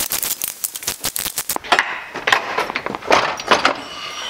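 Socket ratchet clicking in quick runs, loosening a 9/16-inch bolt that holds the engine to the pressure washer's deck.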